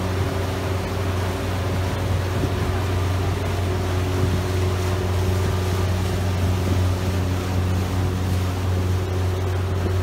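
A yacht's engine drones steadily as the boat cruises, a constant low hum, with water rushing past the hull and churning in the wake.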